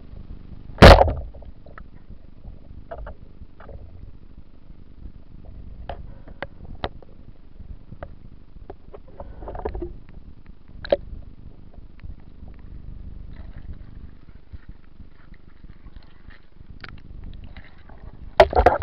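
Underwater sound picked up by a diving camera: a steady low rumble with scattered sharp clicks, a single very loud sharp knock about a second in, and another loud burst near the end.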